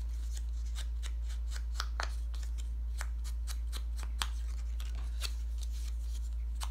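Foam ink blending tool brushed along the edges of a small piece of paper card: many quick, scratchy strokes, over a steady low hum.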